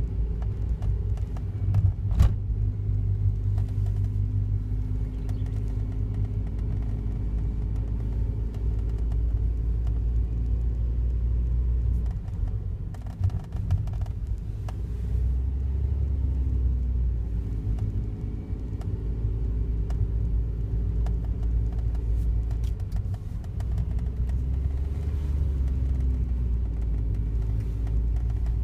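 Daihatsu Wake's 660 cc three-cylinder engine running with a steady low rumble, its pitch shifting a few times as the revs change. A single sharp click about two seconds in.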